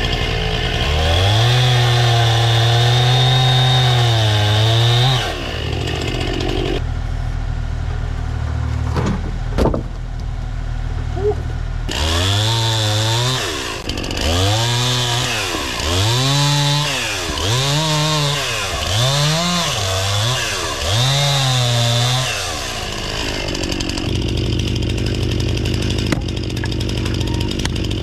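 Stihl two-stroke chainsaw held at high revs for about four seconds, dropping back to a low run for several seconds. It is then throttled up and down about six times in quick succession while cutting logs into firewood rounds, and settles back to idle near the end.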